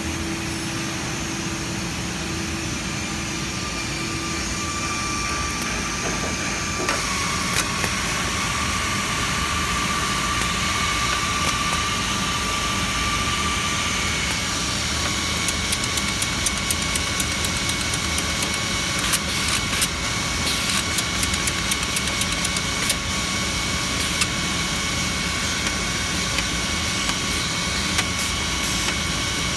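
Anderson PTP-3013 CNC router running with a steady machine hum and a faint high whine whose pitch shifts twice. Many light clicks come through in the second half.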